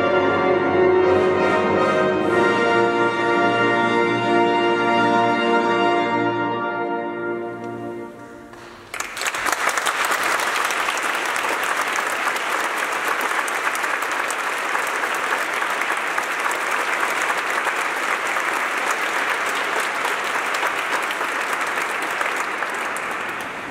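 Wind band holding its brass-heavy final chord, with a few percussion strokes in the first seconds, then releasing it to die away in the church's reverberation. About nine seconds in, the audience breaks into applause that fades near the end.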